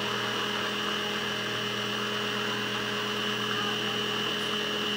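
Babycook baby-food steamer-blender's motor running steadily at speed, puréeing steamed butternut squash in its jar; a constant motor hum with a high whine on top.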